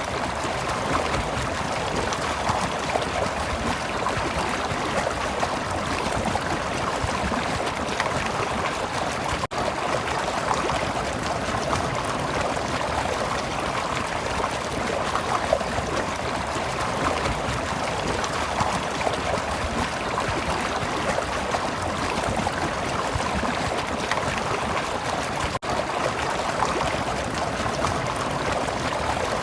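Stream water flowing and trickling steadily, with a dense, even babble. It breaks off for an instant twice.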